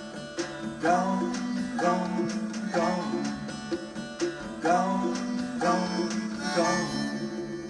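Instrumental close of a country song: plucked acoustic strings strike a chord about once a second, each chord ringing on, and the playing eases off at the very end.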